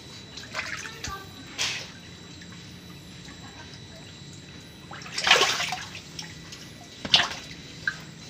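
Water running from a hose into a tarpaulin pond of lele dumbo catfish, a steady hiss, with splashes at the surface several times; the loudest and longest comes about five seconds in.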